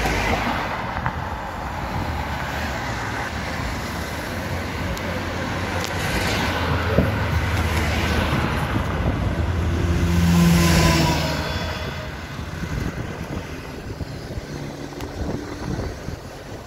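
Road traffic: cars passing close by on tarmac, tyre and engine noise swelling to its loudest as one car goes past about ten seconds in, then fading to a lower background hum.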